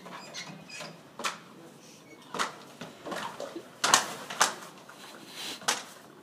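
Swim fins slapping on a hard hallway floor with each step: a handful of sharp, uneven slaps about a second apart, the loudest about four seconds in.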